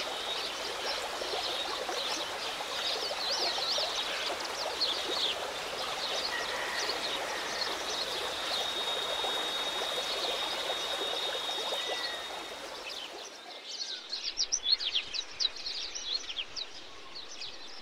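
Outdoor ambience: many small birds chirping over a steady rushing hiss like running water, with a thin, steady high whine lasting several seconds in the middle. About two-thirds of the way in the rushing drops away, and sharper, louder bird chirps stand out.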